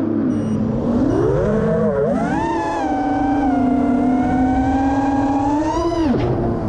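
FPV quadcopter's brushless motors (Hobbywing XRotor 2207 spinning Ethix S3 props) whining, the pitch following the throttle. It dips right at the start, climbs about two seconds in, holds steady, then drops sharply near the end as the throttle is cut.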